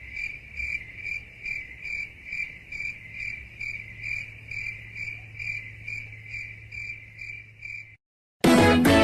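Cricket chirping sound effect, the stock 'awkward silence' crickets meme: an even, steady run of short high chirps, about two and a half a second, which stops about 8 s in. A loud burst of another sound follows near the end.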